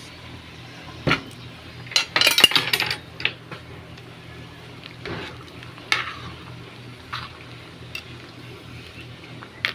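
A cooking utensil knocking and scraping against a pot of soup while it is stirred: a few sharp clinks, a quick clatter of knocks about two seconds in, then scattered single taps, over a steady low hum.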